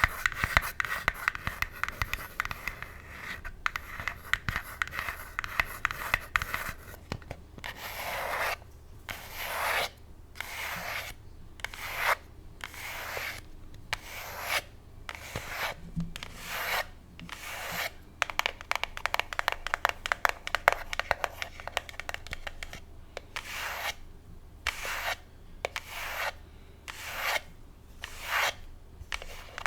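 Long acrylic nails scratching a pink box close to the mic: a fast, dense crackly scratching at first, then from about seven seconds in, slower separate back-and-forth scratch strokes, about one a second.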